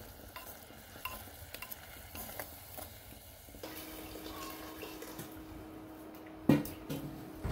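Chopsticks stirring and clicking against cubes of cassava frying in a clay pot, with light sizzling. After that, water poured from a kettle into a clay pot over a wood fire, and a single sharp knock about six and a half seconds in.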